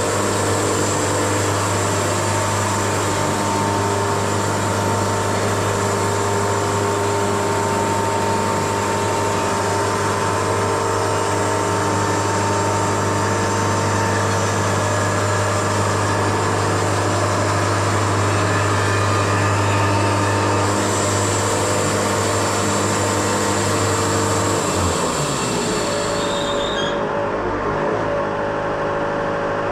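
Wood-Mizer LT70 band sawmill running through a spalted maple log: a loud, steady machine hum with a high whine from the band blade. About 25 seconds in the hum drops in pitch, and the high whine cuts out soon after as the cut winds down, while the mill keeps running.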